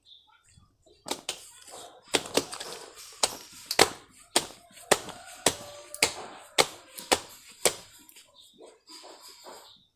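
Soil being packed into a plant pot: a series of sharp taps or pats, about two a second for around seven seconds, then stopping.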